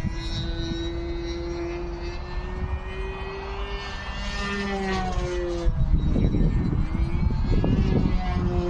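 RC aerobatic model airplane's engine running at speed overhead, its pitch drifting up and falling away as the plane flies past. Wind buffets the microphone, loudest in the second half.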